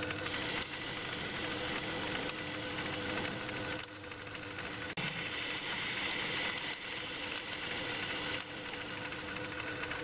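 Myford lathe running, turning an aluminium blank with a lathe tool: a steady motor and drive sound with a few held tones under the cutting noise.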